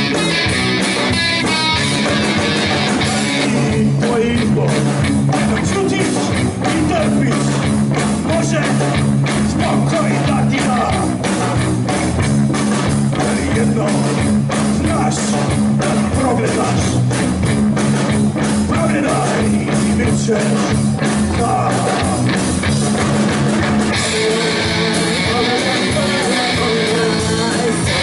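Live band playing amplified: electric guitar and a drum kit, with a singer. The drums come in a few seconds in and drop out near the end, leaving the guitar.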